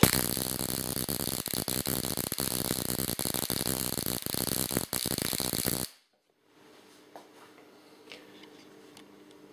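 High-voltage spark arc from a Ruhmkorff induction coil, jumping between a hard-disk platter and a pointed brass electrode, crackling in a continuous rapid buzz. It cuts off suddenly about six seconds in.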